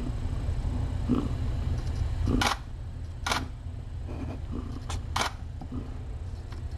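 Camera shutter clicks, four sharp ones with the last two close together, over a steady low hum.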